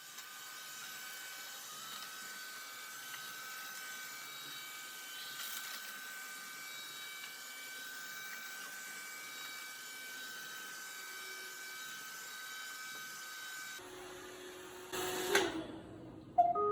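iRobot Roomba 614 robot vacuum running a spot clean: a steady motor and brush whine with a thin high tone through it. About 14 seconds in the sound changes, and a brief louder noise follows.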